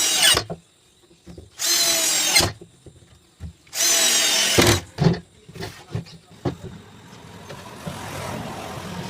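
Power drill running in three short bursts, each under a second and about two seconds apart, with a few knocks between them. A steady hiss grows louder in the last few seconds.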